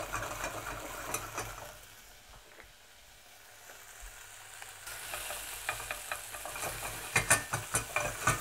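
Fresh cranberries sizzling in a little olive oil in a stainless saucepan over a fairly high gas flame, stirred with a wooden spoon that knocks and scrapes against the pan, several times near the end. The berries are being heated to soften them for cranberry sauce.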